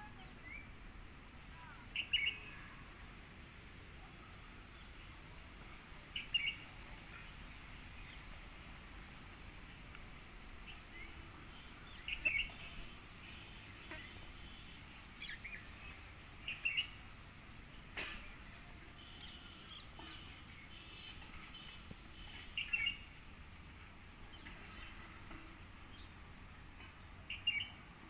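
Outdoor ambience: a bird gives a short, sharp call every few seconds over a steady high-pitched insect drone.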